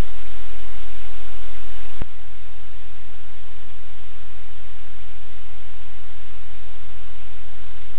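Steady loud static hiss with a low electrical hum underneath, the noise floor of a live-cam microphone feed. One sharp click about two seconds in, after which the hiss drops slightly.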